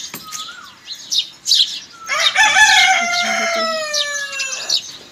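A rooster crowing once, a long call that starts about two seconds in and slides down in pitch toward its end. Small birds chirp around it.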